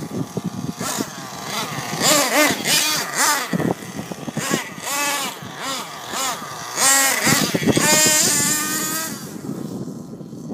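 Nitro engine of a Thunder Tiger MTA Sledgehammer S50 RC truck revving hard over and over, its high-pitched note rising and falling in quick swoops through most of the stretch.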